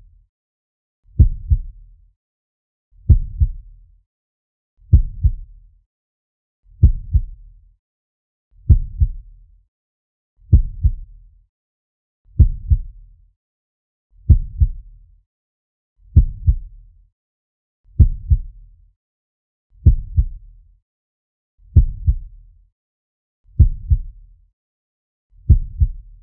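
Slow heartbeat sound effect: a low double thump, lub-dub, repeating steadily about every two seconds, with silence between the beats.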